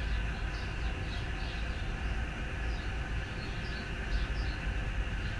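Outdoor background: a steady low rumble with birds chirping, short high chirps repeating about two or three times a second.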